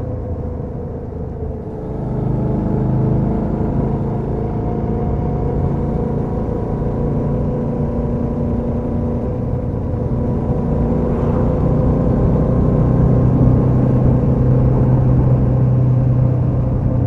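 Suzuki V-Strom 650 XT's V-twin engine running through its stock exhaust while riding, a steady engine note that picks up about two seconds in and gets louder from about ten seconds on.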